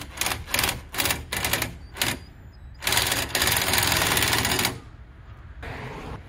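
Impact wrench hammering on a wheel bolt: a string of short bursts, then one longer run of about two seconds.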